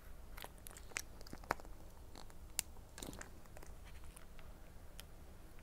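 Irregular small sharp clicks and crackles of a plastic food sachet being handled and torn open close to the microphone.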